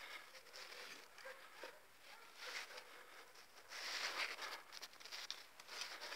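Irregular rustling and scraping, like dry plant material or a covering being handled, in uneven bursts, loudest about four seconds in.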